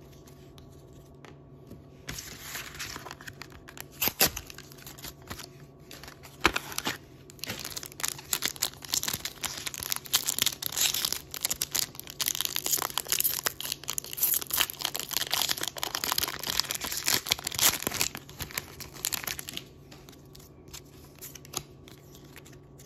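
Foil wrapper of a One Piece trading-card booster pack being torn open and crinkled by hand. Two sharp snaps come a few seconds in, then long, dense crinkling that dies away a few seconds before the end.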